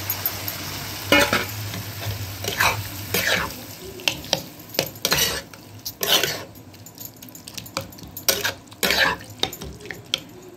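Spatula scraping and stirring diced potatoes through hot oil and onion masala in a frying pan, in irregular strokes. The pan sizzles, more strongly in the first few seconds and then dying down.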